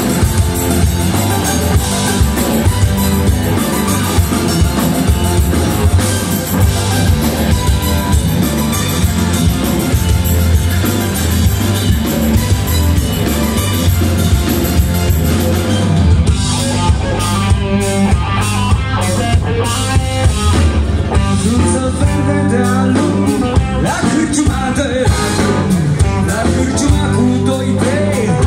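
Live rock band playing loudly: electric guitar, bass guitar and drum kit. About halfway through the sound turns sparser, with separate drum hits standing out.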